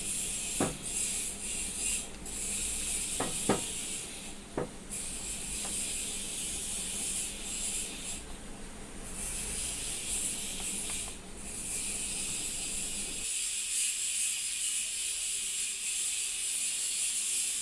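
Small clicks and rubbing as the plastic carbon-brush cover is fitted onto a hand cutter machine, with four sharp clicks in the first five seconds, over a steady hiss.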